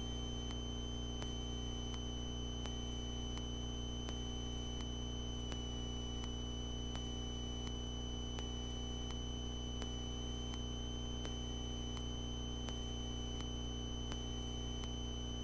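Steady hum and hiss on the cockpit intercom/radio audio feed of a light aircraft in flight, with no one talking and a faint high chirp repeating about once a second.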